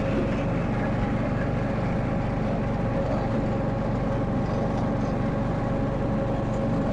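Simplicity rear-engine riding mower running at a steady speed with its cutting blade engaged, a faint steady whine over the engine hum.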